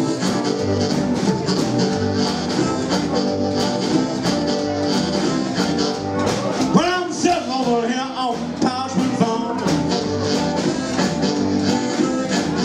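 Live blues band playing: hollow-body electric guitar, upright double bass and drums keeping a steady beat. From about six and a half seconds in, an amplified blues harp played through a hand-held microphone wails over the band with bending notes for about three seconds.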